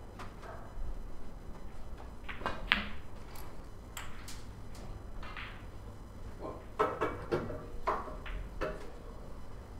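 Sharp clicks of snooker balls: the cue tip striking the cue ball and balls knocking together, the loudest nearly three seconds in during a shot that pots a red. A second run of clicks comes from about seven to nine seconds in.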